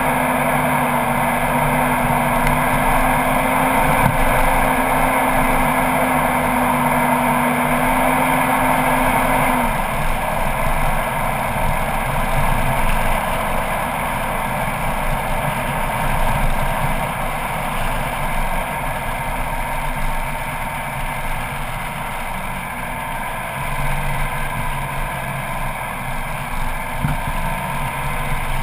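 Four-wheel-drive vehicle driving along a sandy outback track, its engine running under a steady rush of wind and tyre noise on the outside-mounted camera. A steady low hum drops away about ten seconds in.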